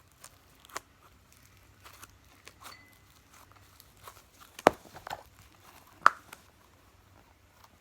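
Slime and its plastic container being handled and put away: scattered soft crackles and taps, with two sharp clicks about five and six seconds in.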